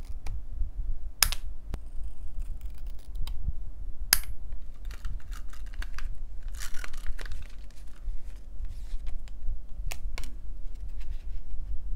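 Scissors cutting a small printed photo, with paper rustling and a few sharp clicks of tools and paper on a desk, over a steady low hum.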